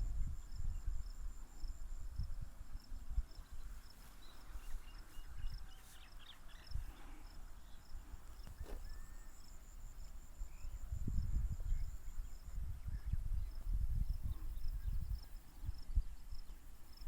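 Outdoor birdsong ambience: a thin, high chirp repeating steadily a few times a second, with a few faint scattered chirps, over an uneven low rumble that is the loudest sound.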